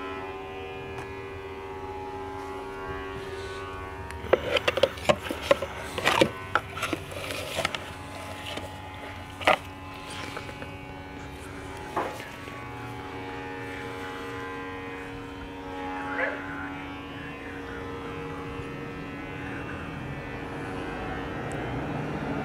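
Rapid metallic clicks and knocks for a few seconds, then a few single sharp clicks, as the piston is worked out of a VW Golf rear brake caliper, over a steady drone of held tones.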